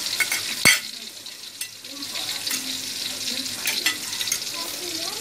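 Chopped garlic and shallots sizzling steadily as they fry in hot oil, not yet crisp. One sharp knock just under a second in, and a few lighter clicks.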